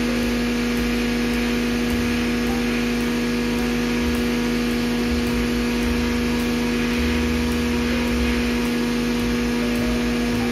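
A machine running with a steady electric hum at one constant pitch, over an even hiss.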